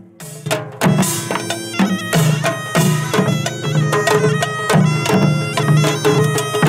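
Korean pungmul folk band playing: janggu hourglass drums beating a steady rhythm with a small hand gong clanging, under a loud reedy wind-instrument melody. The music comes in loud about a second in.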